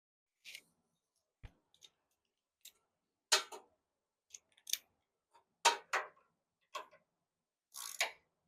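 Irregular small metallic clicks and short scrapes of a washer, lock washer and nut being fitted and threaded onto a terminal post of a new starter solenoid.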